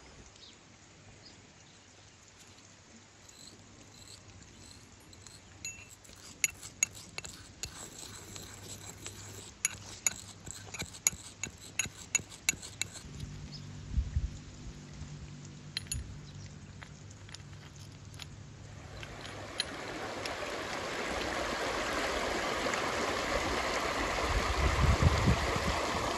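A brass pestle clinking and grinding in a small brass mortar as saffron threads are ground: a run of sharp clinks about six seconds in, lasting several seconds. Near the end the rush of a shallow, rocky river swells up and becomes the loudest sound.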